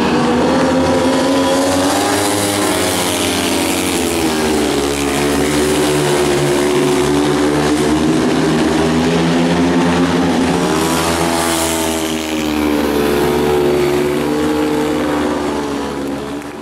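Several speedway motorcycles, 500 cc single-cylinder methanol-burning engines, racing round the track together, their pitch rising and falling every few seconds as the riders throttle down the straights and ease off into the bends.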